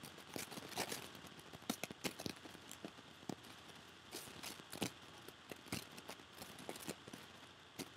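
Faint, irregular taps and clicks of a stylus writing on a digital pen surface, several a second.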